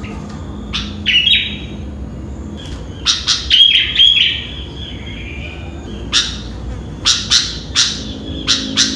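Sooty-headed bulbul calling: clusters of loud, short chirps and whistled notes, a few about a second in, a burst around three to four seconds in, and a quick run of sharp notes through the last three seconds, over a steady low hum.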